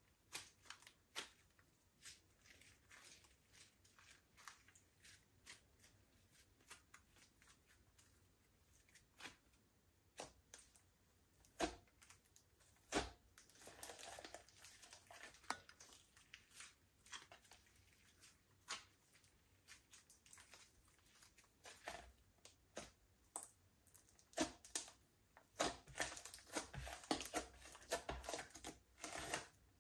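Slime being mixed and squeezed by hand: scattered sticky clicks and small pops, thickening into denser crackling about halfway through and again near the end.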